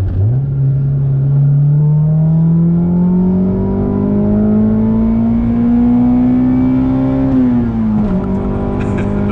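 1997 Acura Integra GS-R's 1.8-litre VTEC four-cylinder with an aftermarket exhaust, heard from inside the cabin, accelerating: the revs climb steadily for about seven seconds, then fall with an upshift and hold steady.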